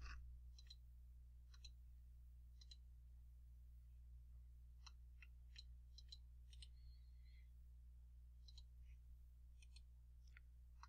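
Faint computer mouse clicks, a dozen or so at uneven intervals, over a low steady electrical hum in near silence.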